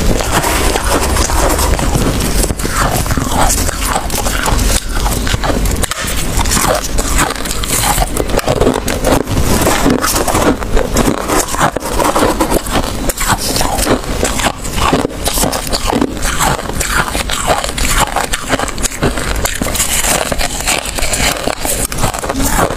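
Gloved hands scraping and scooping loose, powdery frost inside a chest freezer, mixed with close crunching of frost being chewed, picked up by a lapel microphone. Dense, continuous crackling with many small clicks.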